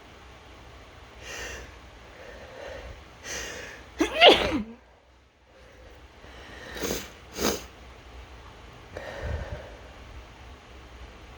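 A person sneezing. A couple of breaths build up, then one loud sneeze comes about four seconds in, with a voiced cry falling in pitch. A brief hush follows, then two short sharp breaths and another softer breath near the end.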